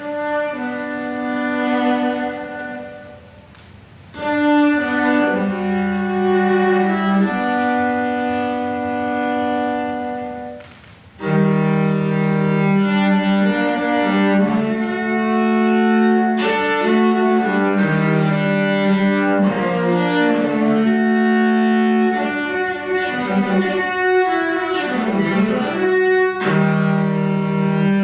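Viola played with a bow through live looping effects: long sustained notes that twice drop away briefly, then build into a denser layered texture of several overlapping notes sounding at once.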